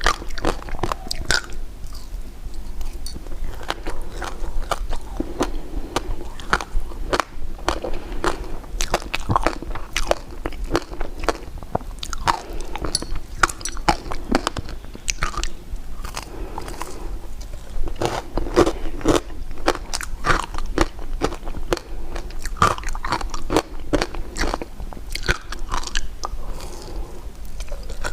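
Close-miked eating of sugary candy: repeated biting and chewing with many sharp, crackly crunches.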